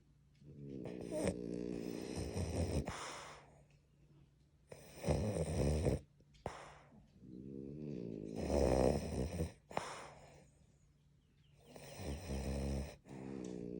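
French bulldog snoring in its sleep: four long snores a few seconds apart, with the next one starting near the end.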